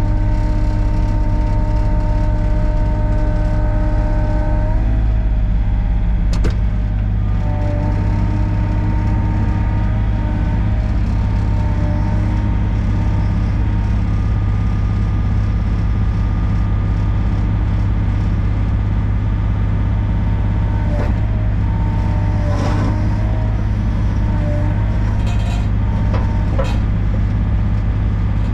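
Sany SY35U mini excavator's diesel engine running steadily with a hydraulic whine, the pitch dropping slightly about five seconds in. A few sharp metal clanks come later, mostly in the last third, as attachment hardware is worked.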